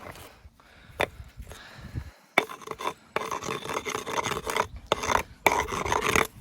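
Stones scraping and grating against each other as a walling stone is shifted and worked into place on a dry stone wall, in several long rough scrapes with short breaks. A single sharp knock of stone on stone comes about a second in.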